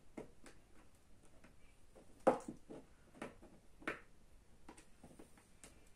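Irregular sharp clicks and snaps of a pry tool working at the seam of an iPod Video's case, the loudest about two seconds in.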